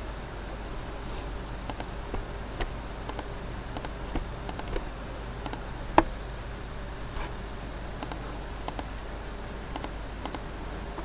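Computer mouse clicking a few times, sharp single clicks with the loudest about six seconds in, over a steady low hum and hiss from the microphone.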